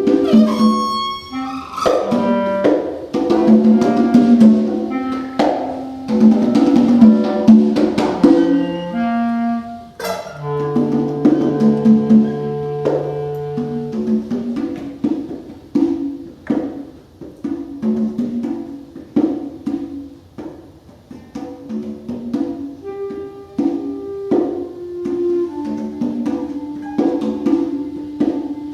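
Free-improvised live music: congas struck in irregular patterns under held, wavering clarinet-like tones and plucked pitched notes, with a long sustained tone about ten seconds in.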